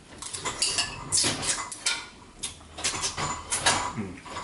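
A person slurping and eating hot rice porridge off a spoon: a quick run of short slurps and mouth noises.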